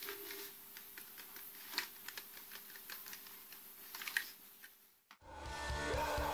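Faint, irregular clicks from an M-Tech MTK01 mini keyboard's keys and plastic case as it is handled. About five seconds in the sound cuts out and music with a steady beat begins.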